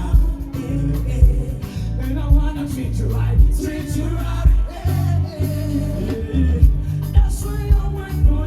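Upbeat pop music with a strong bass line and a steady beat, with a singing voice over it.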